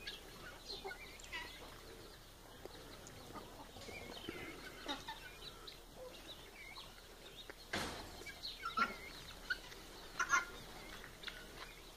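Free-range chickens and helmeted guineafowl clucking and calling in scattered short calls, with a louder cluster of calls about ten seconds in. A single sharp knock sounds a little before that.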